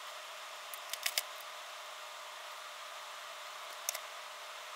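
Small sharp clicks and ticks of hands handling a strip of LED tape and small bench tools: a quick cluster of three about a second in and another near the end, over a steady faint hiss.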